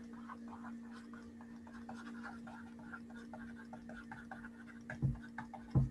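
Quiet room with a steady low hum and light scratching and ticking, then two dull thumps near the end.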